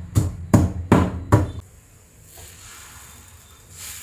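Pestle pounding in a stone mortar: four heavy knocks, about two and a half a second, stopping about a second and a half in. A faint hiss follows.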